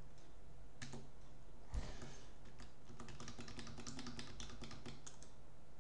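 Computer keyboard keystrokes: a single key click about a second in, a dull knock just before two seconds, then a quick run of light key taps from about three to five seconds, over a faint steady hum.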